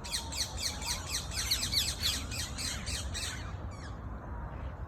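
Parrots calling in a quick run of short calls, about four a second, each falling in pitch, stopping about three and a half seconds in. A steady low rumble of background noise lies underneath.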